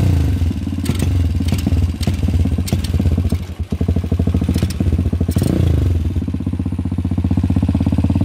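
Single-cylinder four-stroke motorcycle engine running on white spirit instead of petrol: a steady idle with a rev that rises and falls about five and a half seconds in, and a brief uneven stumble about three and a half seconds in.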